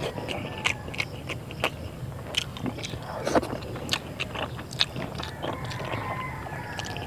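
Close-up eating sounds of a person eating rice and milkfish adobo by hand: moist chewing with a string of sharp lip smacks and clicks, and fingers gathering rice on a banana leaf.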